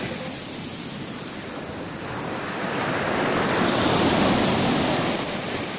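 Sea surf washing up the beach, a steady rush of water that swells as a wave comes in from about two seconds in and eases off near the end.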